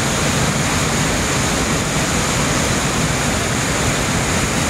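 Whitewater river rapid rushing over and between boulders: a loud, steady rush of churning water.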